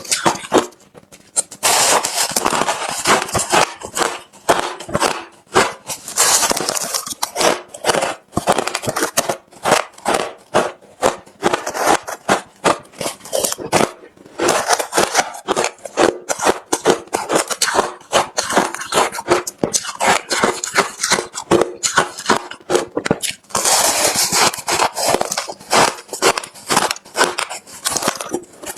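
Hard refrozen crushed ice being bitten and chewed close to the microphone: a continuous run of crunchy cracks, with denser crunching bursts a few times.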